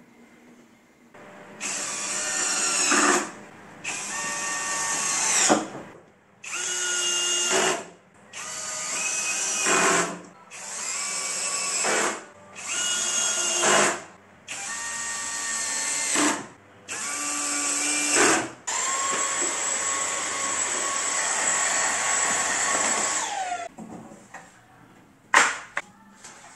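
Cordless drill/driver driving screws into a plywood board: eight short runs of the motor, each rising in pitch as it spins up, then a longer steady run of about five seconds that winds down at the end. A couple of sharp clicks follow.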